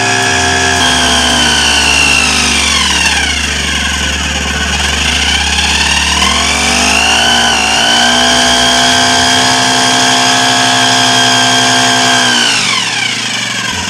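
Four-stroke petrol engine of a portable power sprayer running, its speed dropping about three seconds in, climbing back up around seven seconds, and dropping again near the end as the throttle lever is worked.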